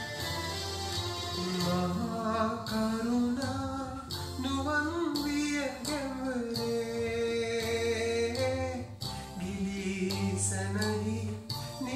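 A man singing a Sinhala song into a microphone over a recorded instrumental backing track, his voice coming in after about two seconds.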